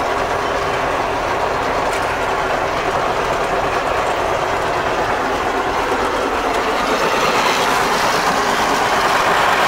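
Fortschritt E 303 self-propelled windrower running while it mows, heard from inside its cab: a steady mechanical clatter of engine, cutter bar and reel, swelling slightly over the last few seconds.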